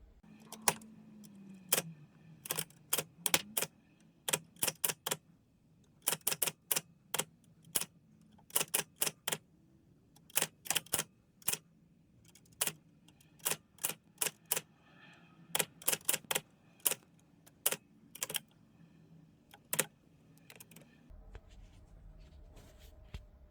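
1940s Mercedes Superba manual typewriter being typed on: irregular sharp key strikes in quick bursts with short pauses between them, stopping near the end.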